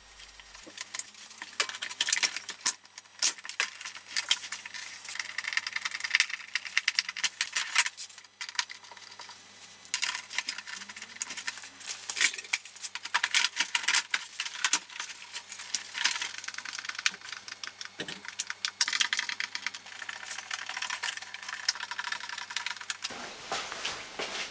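Irregular clicking, tapping and rattling of small hard objects being handled, over a faint steady hum.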